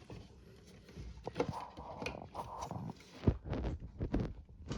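Wooden panels of a magazine rack knocking and scraping as a side panel is worked onto its bolts, with a sharp knock about three seconds in.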